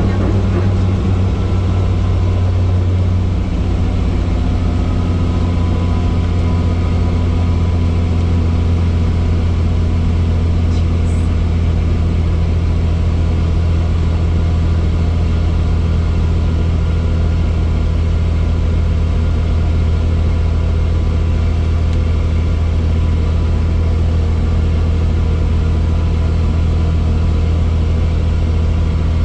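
Helicopter heard from inside the cabin: the steady, loud low drone of the rotor and engine, with a slight shift in its tone about three and a half seconds in.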